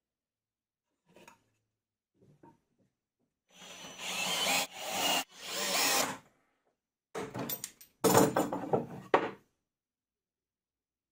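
Cordless drill driving screws into plywood in several short runs, the loudest near the end.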